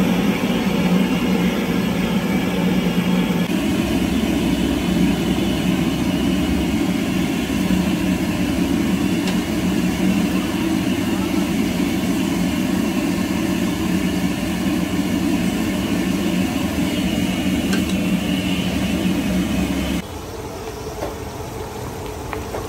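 Large burner flames roaring steadily under a giant pan of curry. About twenty seconds in it gives way to the quieter sound of the curry bubbling in the pan.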